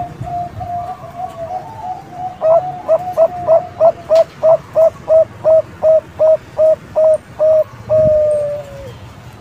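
Bangkok zebra dove (perkutut bangkok) cooing. A soft, quick trill of notes gives way about two seconds in to a loud run of staccato coos, about three a second, ending in one longer, falling note near the end.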